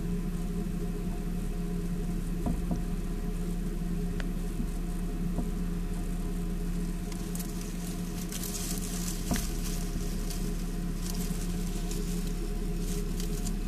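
Crackly rustling of shredded paper bedding in irregular bursts from about halfway through, over a steady low electrical hum.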